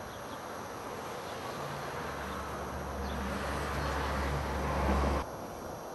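A low droning engine hum that comes in about two seconds in, grows louder, and cuts off suddenly near the end.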